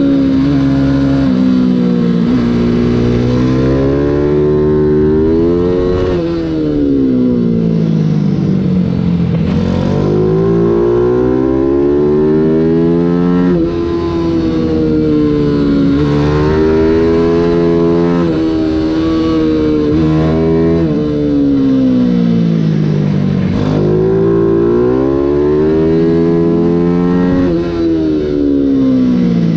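Mini GP race bike's small engine at racing speed, heard from on the bike: the revs climb and fall again and again, dipping at gear changes and when braking for corners. A rush of wind runs underneath.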